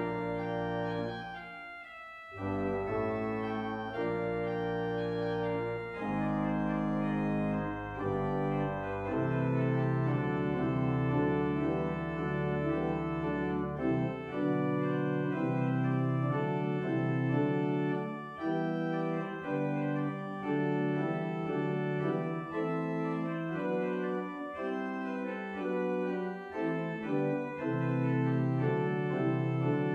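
Church organ playing sustained chords, with a brief break about two seconds in and deep pedal notes that drop out about fourteen seconds in.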